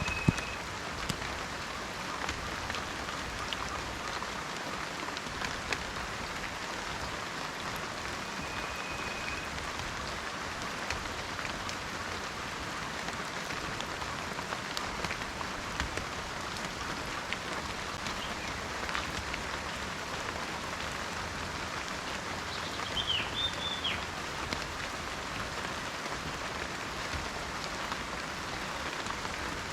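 Steady rain falling in a forest, an even hiss with scattered drop ticks. Faint high whistles come near the start and about eight seconds in, and a short chirp about two-thirds through.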